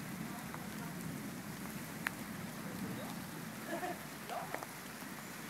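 Faint, steady hiss of light rain, with a few scattered drops ticking close by.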